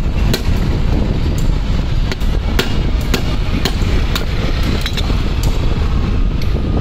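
Metal tools and parts of a dismantled tractor starter motor clinking and tapping as they are handled on a workbench, over a steady low rumble.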